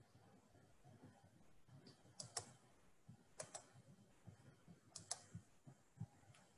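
Faint, scattered clicking at a computer over near silence, mostly in quick pairs of clicks a second or more apart.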